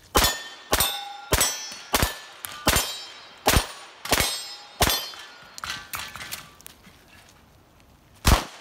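A 1911 pistol in .45 ACP firing a string of about eight shots, roughly two-thirds of a second apart, at steel poppers, each hit followed by a ringing clang from the steel. A few quieter clanks come about six seconds in, then one more shot near the end.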